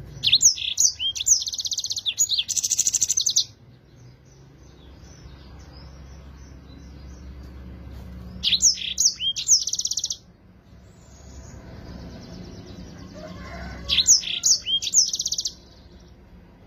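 Yellow-fronted canary (Mozambique canary) singing three song phrases: at the start, about eight seconds in, and about fourteen seconds in. Each phrase opens with a few quick falling whistled notes and runs into a fast trill.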